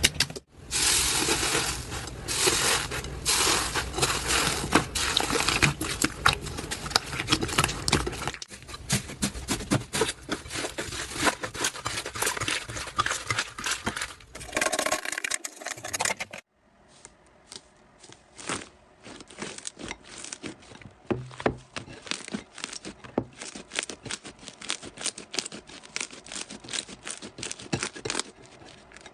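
Slime being squeezed and worked by hand, giving dense crackling, popping clicks. The crackling is louder through the first half and cuts off about 16 seconds in, then continues more quietly.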